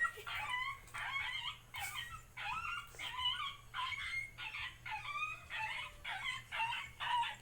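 Dog crying in pain: a rapid string of short, high yelping cries, about three a second, each bending in pitch.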